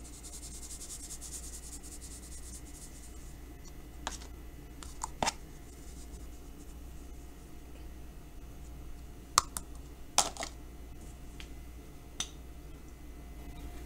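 Cinnamon shaken from a spice shaker onto cut apples, a rapid fine rattling ticking for about two seconds, followed by a few scattered sharp clicks and taps.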